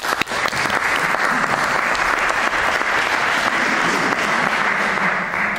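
Audience applauding, starting with a few sharp claps and dying away near the end.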